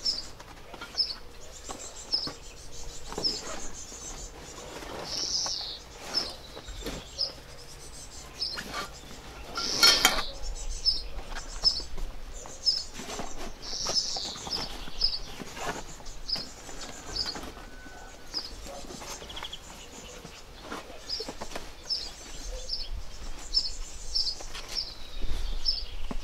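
A small bird chirping over and over, short high chirps about one or two a second with a few longer falling calls among them. Under it, rustling and light knocks as a black fabric equipment bag is handled and packed.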